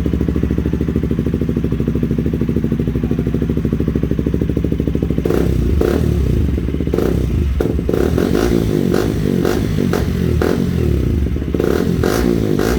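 KTM RC200's single-cylinder engine, fitted with an aftermarket exhaust, idling with an even pulsing beat. About five seconds in the throttle is blipped repeatedly, and the exhaust note rises and falls with sharp cracks to the end.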